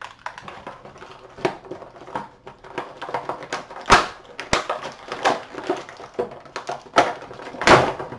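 Action-figure packaging being handled and pulled apart to free a figure: a run of irregular crackles and clicks, with a few louder cracks about four seconds in and near the end.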